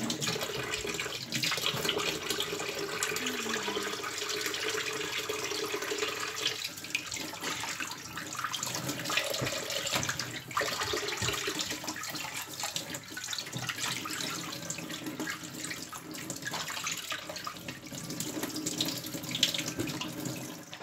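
Kitchen tap running into a bowl in a stainless steel sink, with water splashing as pieces of smoked turkey are rubbed and rinsed by hand.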